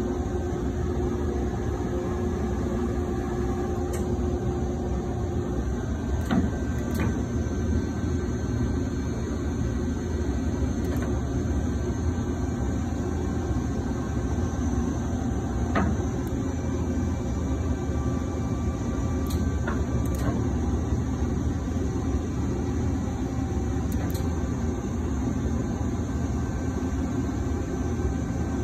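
HEM VT140HA-60 vertical band saw running under power: a steady mechanical hum and drone, with a few light clicks.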